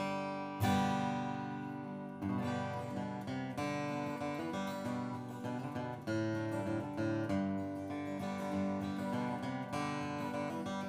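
Martin D-28 Authentic 1941 rosewood dreadnought acoustic guitar, steel strung and played with a pick: a loud strummed chord about half a second in, then a run of picked single notes and strums.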